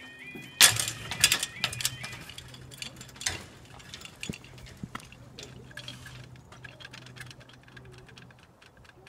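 Level crossing warning alarm sounding a rapidly repeating warble, then cutting out about two seconds in once the barriers are down. A loud clatter comes just after the start, followed by scattered light clicks and a faint low hum.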